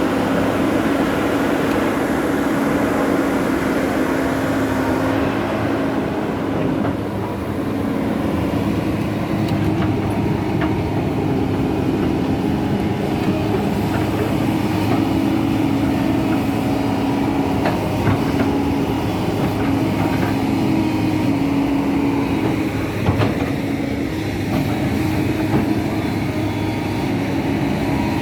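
Heavy engine running with a steady low drone, with a few short knocks and clanks along the way.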